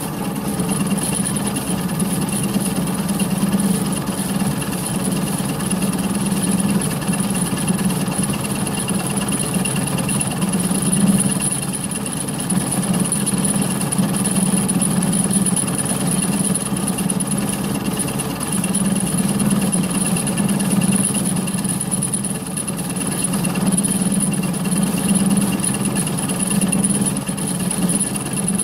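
Mini lathe running steadily while milling with a milling attachment: a constant low hum with a thin high whine over it.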